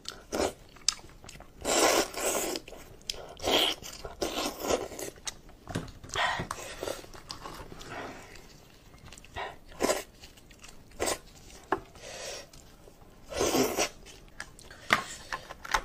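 A person eating braised sheep's head up close: chewing and biting the meat in irregular bursts, with wet tearing and squelching as gloved hands pull it off the bone.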